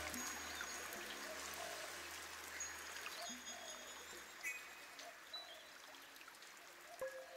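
Soft ambient background music fading out, with a low drone that dies away about halfway through. Sparse short high tones sound over a soft, trickling, water-like hiss.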